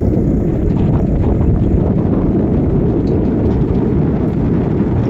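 Ride in an open motor rickshaw: steady wind buffeting on the microphone mixed with the vehicle's running noise.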